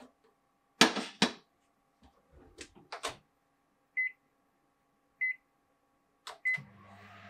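A ceramic saucer clatters twice as it is set inside a microwave oven, and two lighter knocks follow as the door is shut. Three short beeps sound as the touch panel is pressed, and near the end the microwave starts running with a low hum.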